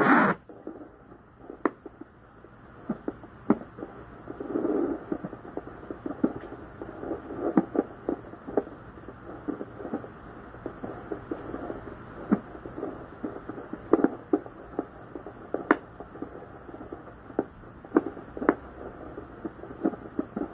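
Pocket fetal Doppler's speaker giving a steady muffled whooshing in which a faint fetal heartbeat of about 130 beats a minute can only just be heard, broken by scattered sharp clicks from the probe on the belly.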